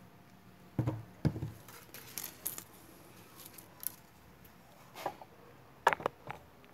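Handling noises from a small electric motor's bare stator core: a few scattered knocks and clicks as it is moved about and set down on a wooden block, with a small cluster of knocks about six seconds in.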